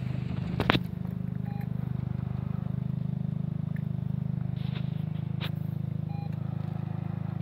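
A steady low engine-like hum with a fast flutter, and two short sharp clicks, one about a second in and one past the middle.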